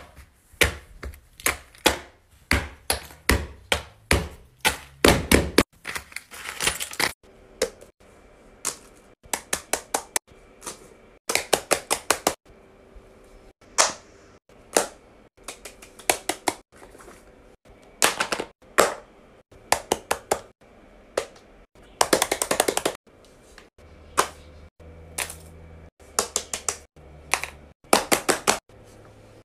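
Fidget toys being clicked and snapped by hand: runs of short, sharp clicks, several a second, broken by brief pauses.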